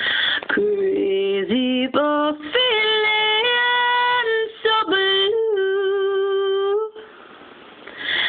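A woman singing a slow ballad unaccompanied, in drawn-out phrases with two long held notes, the second one ending about seven seconds in.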